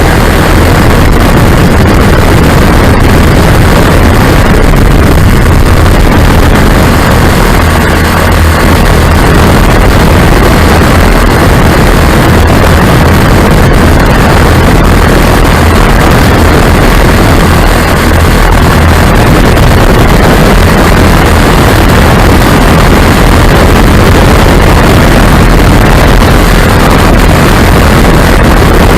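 Lazair ultralight's twin engines running steadily, loud and unbroken, with wind noise on the microphone.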